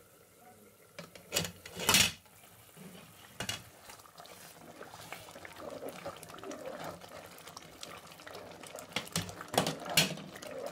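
A glass pot lid clinks against a metal pot as it comes off, then a spoon stirs a thick pepper stew in the pot with a wet sloshing sound. The loudest clink comes about two seconds in, and the spoon knocks the pot a few more times near the end.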